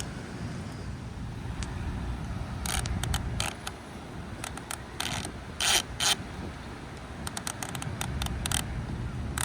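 Hard plastic toy pieces clicking and clacking, irregular at first, with the loudest clacks about six seconds in and a run of quicker clicks near the end.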